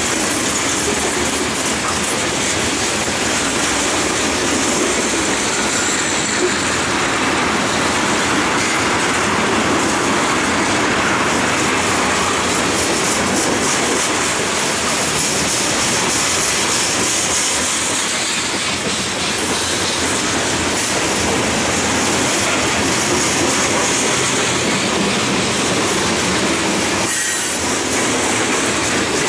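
Freight train of covered hopper cars rolling past close by: a steady, loud noise of steel wheels running on the rails.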